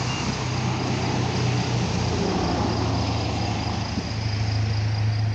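A steady low mechanical hum with an even rushing noise over it, unchanging throughout.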